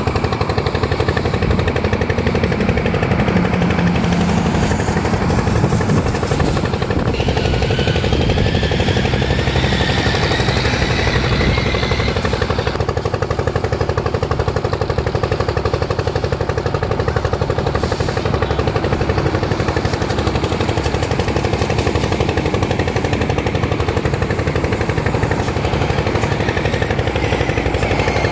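A steady, rapid mechanical clatter of an engine running close by, with a higher whine that rises and wavers between about 7 and 12 seconds in.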